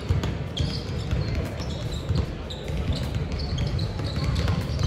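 Basketballs bouncing on a hardwood gym court, with short high sneaker squeaks and the low chatter of a crowd in a large hall.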